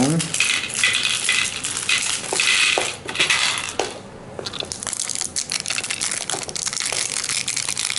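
Small hard candies clattering out of a plastic packet into a clear plastic bowl: a dense rattle for about the first three seconds, then scattered separate clicks as the bowl is handled.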